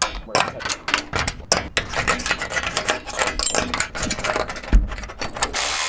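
Quick, irregular metallic clicks and taps of aluminum solar-panel mounting brackets and their bolts, washers and nuts being handled and fastened. A steady hiss takes over near the end.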